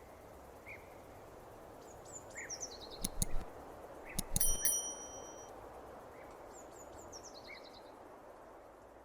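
Outdoor nature ambience of small birds calling over a steady background hush. A high, fast descending trill repeats three times, with scattered short chirps between. Around the middle come a few sharp clicks, then a brief bell-like ringing note.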